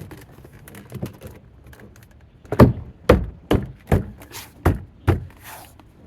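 A run of sharp thumps, about two a second, starting about two and a half seconds in: a hand knocking the door trim panel of a BMW E92 coupe to seat its clips.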